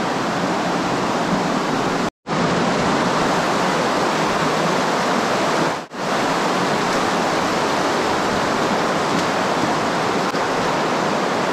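Steady rushing of water flowing over a rubble tunnel floor, broken by a moment of silence about two seconds in.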